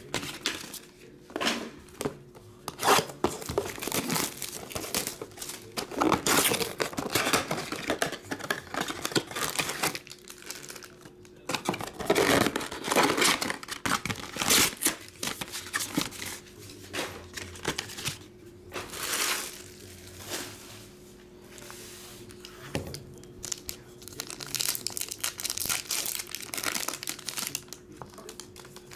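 Trading-card packaging being handled: the cardboard of a Donruss Optic football blaster box torn and rustled, and foil card packs crinkling, in irregular bursts.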